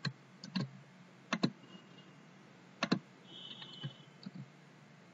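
Computer mouse and keyboard clicks: several sharp clicks, mostly in quick pairs, over about three seconds, then a few fainter ones, as text is selected, copied and a browser tab is switched.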